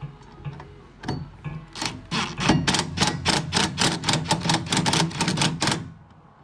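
Impact driver running a bolt home on the hoop's metal frame: a single click, then about four seconds of rapid, evenly spaced clattering impacts over the motor's hum, cutting off suddenly.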